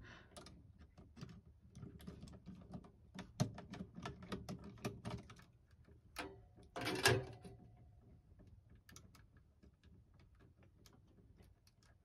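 Irregular small metallic clicks, ticks and scrapes of a screwdriver working on breakers and wiring in an RV power distribution panel, with a louder knock about seven seconds in.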